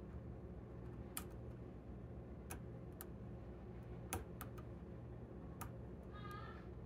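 Hook pick working the pins of a pin-tumbler lock cylinder held under tension: about seven scattered, sharp little metallic clicks, the loudest a little past the middle, with a brief squeak near the end.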